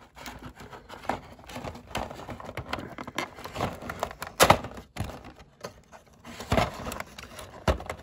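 Cardboard door of a Kinder chocolate advent calendar being pried and torn open by hand: irregular crinkling, scraping and tapping of card, with a few sharper knocks, the loudest about halfway through.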